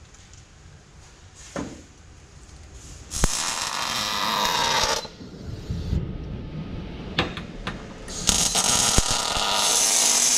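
MIG welding on car body steel: two bursts of the welding arc, a short one about three seconds in and a longer one that starts near the end and keeps going.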